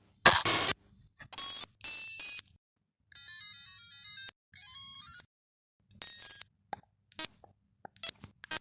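Radica Cube World handheld toy playing its electronic sound effects: a run of short, high-pitched beeping jingles, each under a second long apart from one of about a second near the middle, with brief silences between them.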